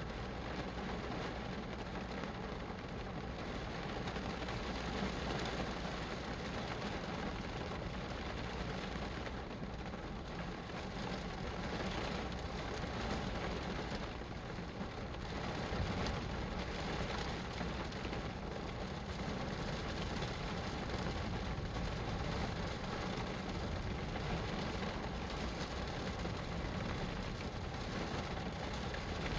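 Steady rain: a constant hiss with a low rumble underneath that swells gently now and then.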